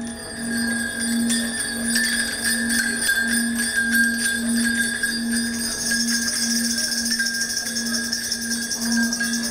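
Live percussion: a jingling metal shaker-type instrument, like bells or a tambourine, shaken continuously from the start. Underneath runs a low tone that pulses about twice a second.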